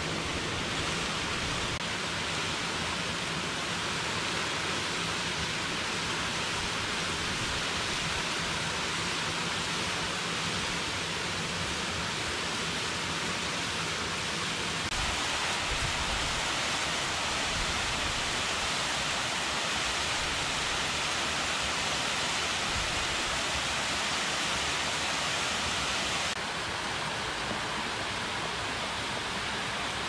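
Waterfall pouring into a rocky pool: a steady hiss of falling water. Its tone shifts abruptly about halfway through and again near the end.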